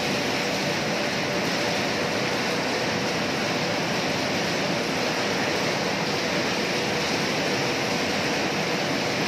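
Steady din of cashew-processing machinery running in a factory hall, an even rushing noise with a faint steady hum.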